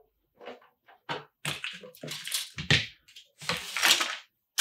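A run of short, irregular rustles and scrapes, with a soft knock or two, as things on a cluttered work table are handled and moved. The longest scrape comes about three and a half seconds in and lasts about a second.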